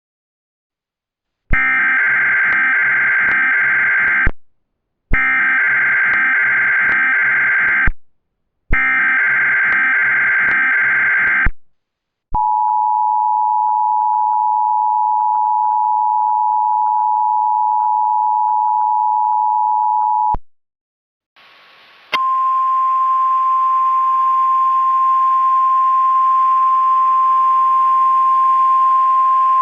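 Emergency Alert System broadcast opening with three SAME header data bursts, harsh digital screeches of about three seconds each with short gaps between. These are followed by the two-tone EAS attention signal held for about eight seconds. After a brief pause, a single steady weather-radio alert tone starts over a hiss.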